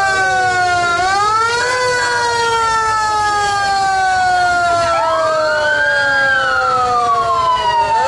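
Vintage fire truck's siren sounding in a parade: it winds up briefly twice near the start, then slowly winds down in pitch. A second siren tone rises and falls about five seconds in.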